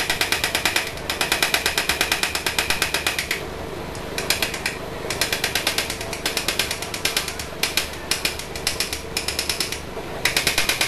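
Rapid tapping, about ten taps a second in runs broken by short pauses: a sewing needle being hammered into a hard mint Mentos candy to force it through.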